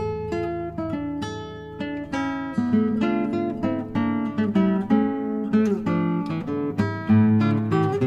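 Acoustic guitar music, with notes plucked and strummed in a continuous run.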